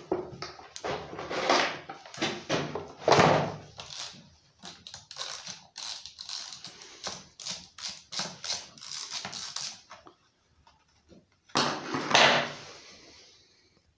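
A 13 mm socket and small wrench loosening the two bar nuts on a Husqvarna 137 chainsaw: a quick run of metal clicks, knocks and scrapes, with a few louder scraping strokes near the start and again near the end.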